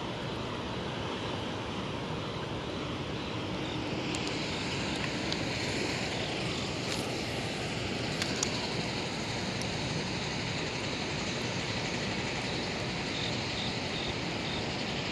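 Steady rushing of fast, turbulent water below a hydroelectric dam with its generators releasing water.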